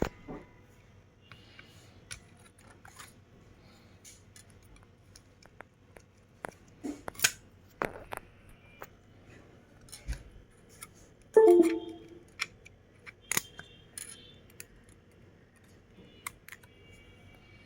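Small repair tools and parts being handled, giving scattered clicks and taps. A brief squeaky, pitched sound about eleven seconds in is the loudest event.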